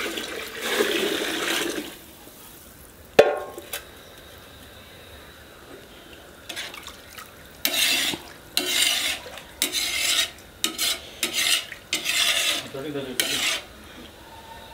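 Water poured from an aluminium bowl into a large pot of biryani masala for about two seconds, then a single sharp knock. From about six seconds in, a ladle stirs the watery masala in the pot in a run of short swishing strokes, eight or nine of them.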